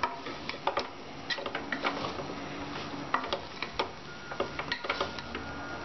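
Plastic spatula stirring beef cubes and spice masala in an aluminium pressure cooker, with irregular knocks and scrapes against the pot's sides.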